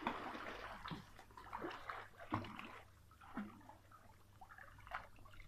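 Soft, irregular splashing and lapping of pool water from a child's swimming strokes, a little fuller in the first second, then scattered small splashes.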